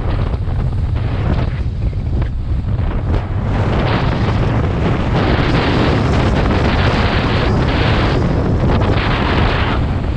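Wind buffeting the microphone: a heavy, steady low rumble that grows stronger and fuller from about four seconds in.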